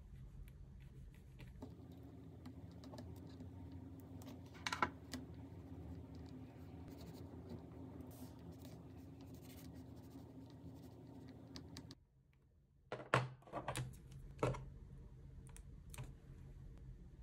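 Small clicks and taps of metal nail tools (tweezers and a stainless spatula) against a palette card and gel pot, with a sharp tap about five seconds in and a quick run of louder clicks a little after the middle.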